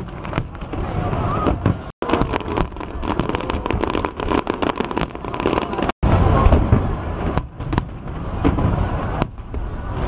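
Aerial fireworks going off in rapid succession, many sharp bangs and crackles over a low rumble, with crowd voices faintly underneath. The sound cuts out for an instant twice.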